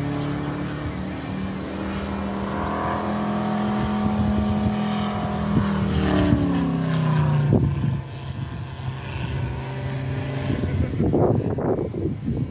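Large-scale radio-controlled Gee Bee R2's Moki 400 radial engine running at steady power in flight. Its pitch drops as the plane passes close overhead about six to eight seconds in, and the note stays lower as it flies away. Some rough, gusting noise comes near the end.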